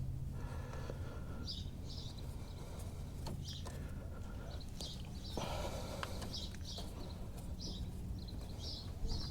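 Small birds chirping repeatedly over a steady low hum, with a few light clicks.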